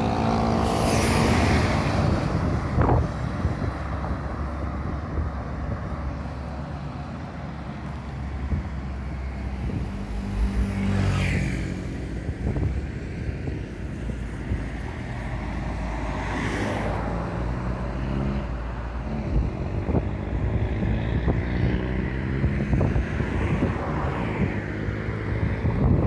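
Road traffic: motor vehicles passing close by one after another, about four times, each engine and tyre noise swelling and fading over a steady background rumble.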